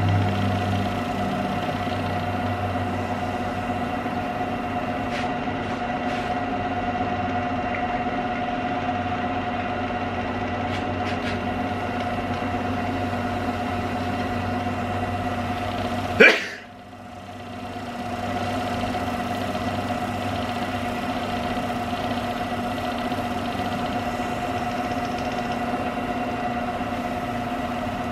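Wood lathe running steadily with a constant motor whine while a bowl is turned. A sharp click comes about sixteen seconds in, after which the sound drops away briefly and returns to the same steady whine.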